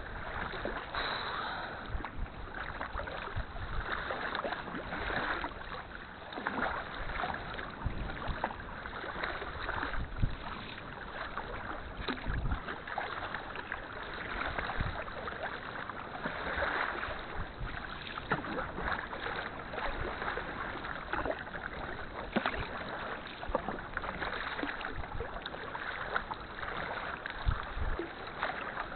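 Kayak paddling on the sea: the paddle blades dip and splash in turn, a swell of splashing every couple of seconds over steady lapping and dripping water.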